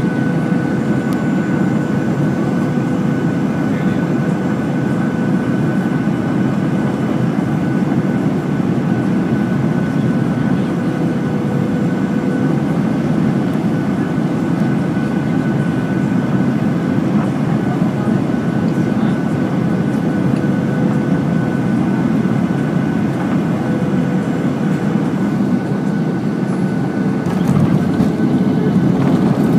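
Cabin noise of a Boeing 737-800 on final approach: a steady rush of air and engine sound with a steady whine from its CFM56 engines. Near the end the whine stops and the noise grows louder as the aircraft touches down on the runway.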